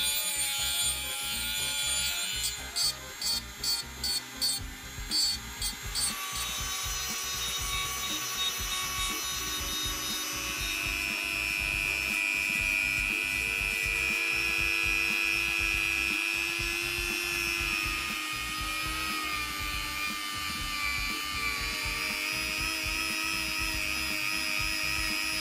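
Handheld rotary tool running at high speed with a steady whine that shifts in pitch as it loads. It starts with a rapid stutter of short bursts over the first few seconds, then settles into continuous grinding and polishing of a cast metal part with abrasive wheels.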